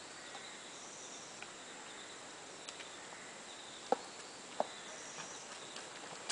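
High-pitched insect trills repeating every couple of seconds over a faint steady outdoor hiss. Two sharp clicks come a little under a second apart around the middle.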